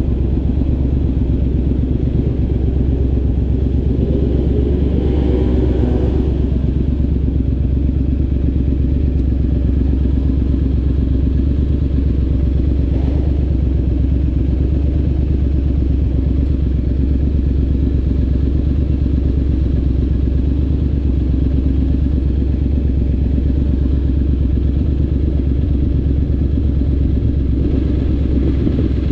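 Triumph Scrambler 900's parallel-twin engine, breathing through an aftermarket Zard exhaust, running steadily at low revs, mostly at idle.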